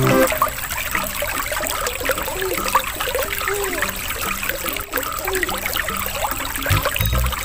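Aquarium aeration bubbling: air from a tube rising through the water in a steady stream of small bubbles, with a continuous trickling, gurgling sound.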